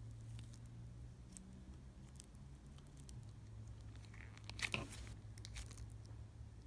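Stiff, putty-like slime being pulled and pressed by hand: faint sticky crackles and clicks, with a louder crackle about two-thirds of the way through.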